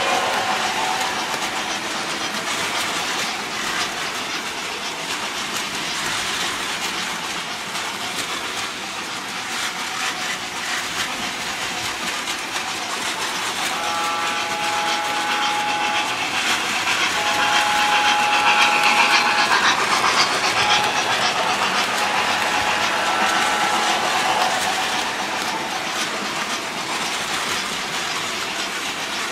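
Model train running on the layout track: a steady rumble and clatter of wheels on rail. From about halfway through, the locomotive's onboard sound system gives several held, multi-note whistle toots while the train's running grows slightly louder.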